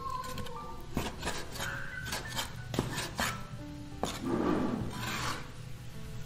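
Chinese cleaver knocking on a wooden cutting board as pork is sliced, then the blade scraping the cut meat across the board. A few separate knocks come first, and a longer scrape follows about four seconds in.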